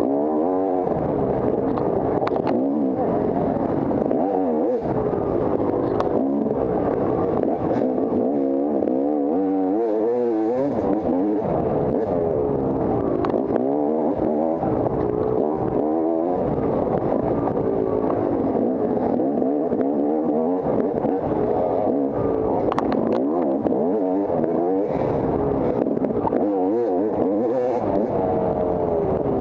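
Off-road dirt bike engine running hard and revving up and down continuously under throttle, with a few sharp knocks along the way.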